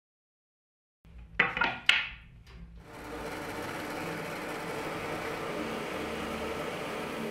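Drill press boring into a hardwood board with a Forstner bit: a few sharp cutting bursts about a second and a half in as the bit bites into the wood, then the machine running steadily.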